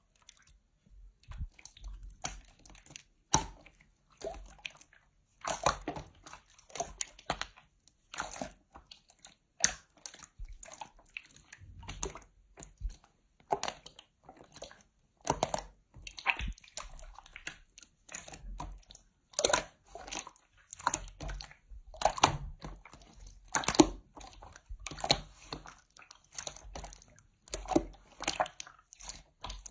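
Slime being squished and pressed by hand: irregular short wet squishes, several every few seconds.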